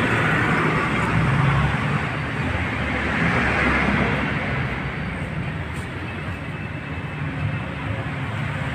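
Steady background vehicle and traffic noise.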